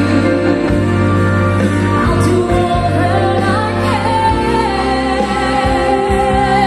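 A song with a singing voice over steady bass notes, played through a pair of KEF Reference floorstanding loudspeakers. From about two-thirds of the way in, a sung note is held with vibrato.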